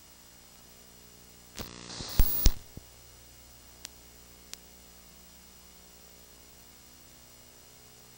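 Steady electrical hum on a blank recording, broken about a second and a half in by a burst of static lasting about a second with two loud clicks, followed by two faint ticks.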